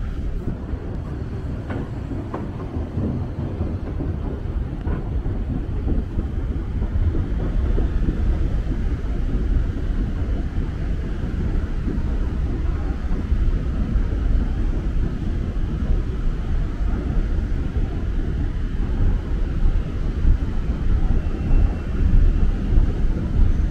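Low, steady rumble while riding a long London Underground escalator, with a few faint clicks in the first few seconds and growing slightly louder toward the end.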